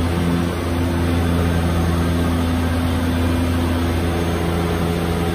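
A de Havilland Canada DHC-6 Twin Otter's two Pratt & Whitney Canada PT6A turboprop engines and propellers running in flight, heard from the cockpit: a loud, steady drone with a deep hum and several steady tones above it.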